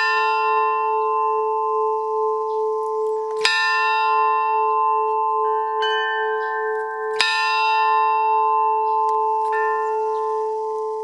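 A bell struck three times, about three and a half seconds apart, each stroke ringing on steadily until the next.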